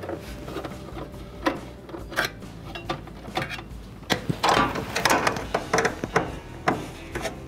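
1/4-inch nut driver backing out the timer's mounting screws in a washer's sheet-metal console: a string of sharp clicks and metallic rattles, busiest a little past halfway.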